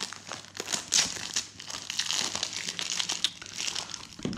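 Plastic shrink-wrap crinkling as it is pulled off a Blu-ray case: a busy, irregular run of crackles.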